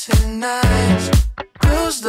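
Background pop song with a steady beat and a sung vocal, which cuts out for a moment about one and a half seconds in.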